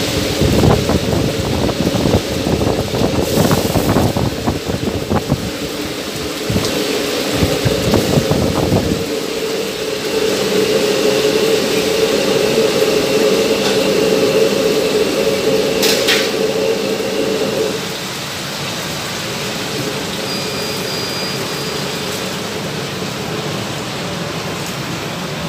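Tilapia frying in hot oil in a wok, sizzling with dense crackling and spattering that is strongest in the first nine seconds. A steady drone runs under it and stops about eighteen seconds in, leaving a softer, even sizzle.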